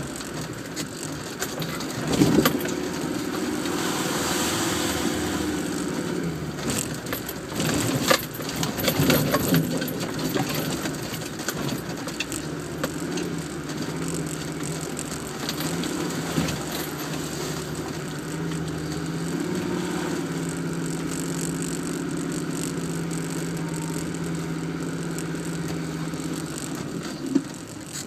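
Land Rover Defender engine running as it drives over a rough off-road track, heard from inside the cab, with knocks and rattles from the body over bumps, the loudest about two and eight seconds in. The engine settles to an even hum in the second half and drops away suddenly near the end.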